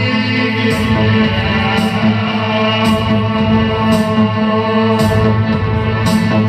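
A live band playing loud, steady music: sustained electric guitar through effects, with a sharp high hit about once a second.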